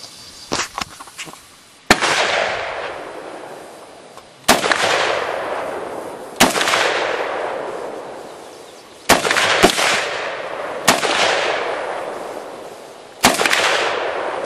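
Rifle fired seven times in about eleven seconds, each shot followed by a long echo that dies away; two of the shots come close together about two-thirds of the way through. A few faint sharp cracks come just before the first shot.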